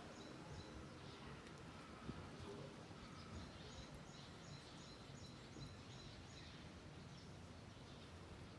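Near silence: faint outdoor ambience with a small bird chirping repeatedly in the background, the short high chirps coming in runs near the start and again midway.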